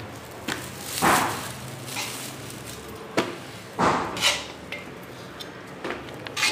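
A few short knocks and clatters spread out over several seconds, from food being handled on steel serving trays.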